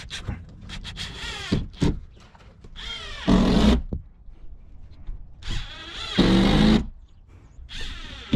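Power drill running in two short bursts, about three and six seconds in, with light knocks in between.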